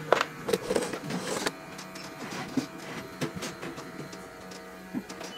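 Repair-bench room sound: a steady electrical hum with irregular small clicks and taps of hand tools, busiest in the first second and a half.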